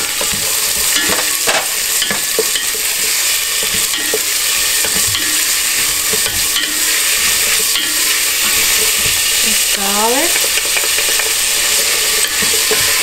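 Chopped onion and bell pepper sizzling in hot olive oil in an enamel stockpot, stirred with a wooden spatula that scrapes and taps against the pot. A short rising squeak about ten seconds in.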